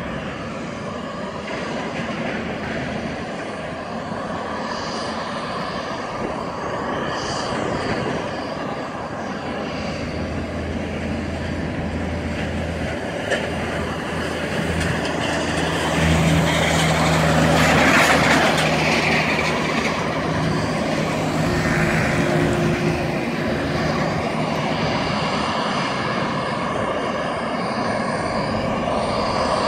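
Airbus A319 airliner whining steadily while it is pushed back by a tug. A low engine drone joins about ten seconds in, and the noise swells to its loudest about eighteen seconds in before easing.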